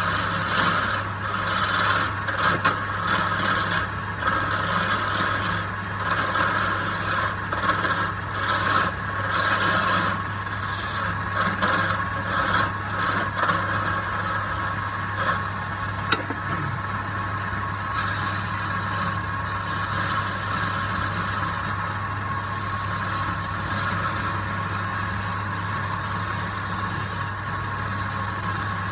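A wood lathe runs with a steady hum while a tool scrapes and rubs against the spinning pine. The scraping comes in irregular strokes for about the first half, then settles into a smoother, even scrape.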